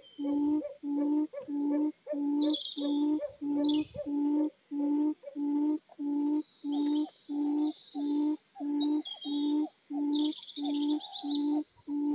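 Quail call: one low hooting note repeated very evenly, about one and a half times a second, the lure for a quail trap. Small birds chirp and trill higher up.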